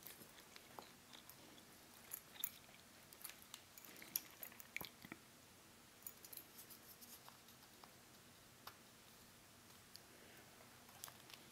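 Near silence broken by faint, scattered small clicks and ticks from a pin-tumbler lock cylinder being taken apart by hand.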